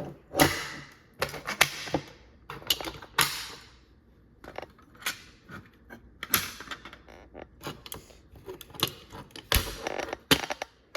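Manual fire alarm pull stations being pulled one after another: a string of irregular sharp clicks and clacks as the handles snap down.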